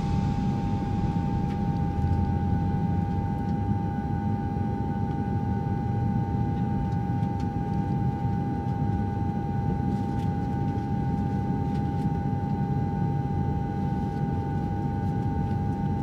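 Long-EZ's pusher propeller engine running at low power during landing rollout and taxi. It is a steady low rumble with a constant high whine over it, picked up by a camera mounted on the airframe.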